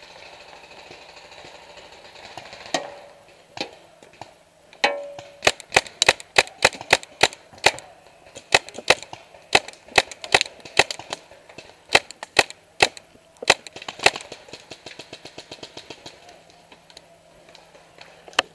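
BT4 paintball marker firing a long string of sharp pops, several a second, from about five seconds in until about fourteen seconds in, with fainter scattered pops of other markers before and after.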